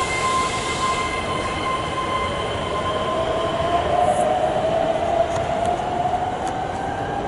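Keihan limited express train pulling into an underground platform: a whine that fades as it slows, then a long squeal, rising slightly in pitch, as it brakes to a stop, with a few sharp clicks near the end.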